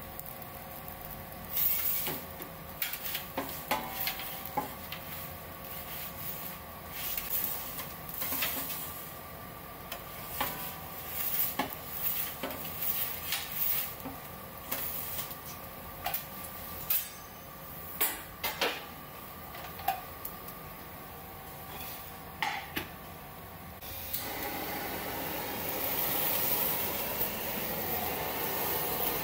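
Scattered sharp clicks and clinks over a faint steady hum while pizza is worked in a wood-fired oven. About 24 s in, a cartridge gas blowtorch starts hissing steadily as it flames the beef slices on a pizza.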